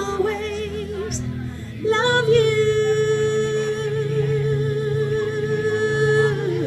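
A woman singing into a microphone through PA speakers over backing music. She sings a short phrase with vibrato, then holds one long note with vibrato from about two seconds in until near the end.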